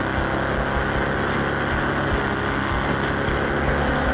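Motorcycle engine running at a steady pace under way, with the rushing of wind and road noise over the action camera's microphone.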